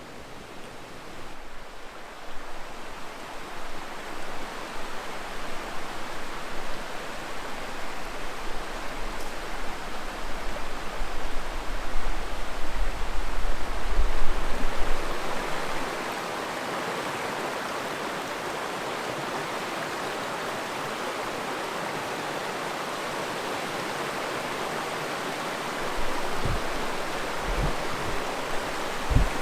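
Rushing creek water: a steady wash of noise that grows louder over the first half and then holds even. Low rumbling sits under it through the first half, and a few short low thumps come near the end.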